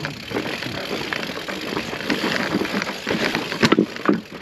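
Mountain bike riding over loose volcanic rock: tyres crunching on stones and the bike rattling, with a sharp knock about three and a half seconds in.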